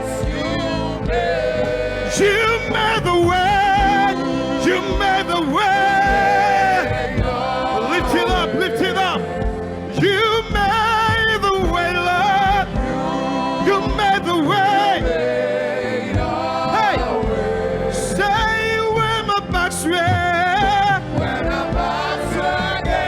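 Live gospel worship music: a sung vocal line with vibrato over continuous accompaniment.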